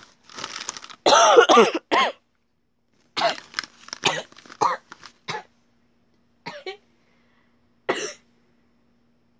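A child coughing in a fit after choking on her own spit. The loudest, most strained coughs come about a second in, followed by a run of quick coughs and two single coughs near the end.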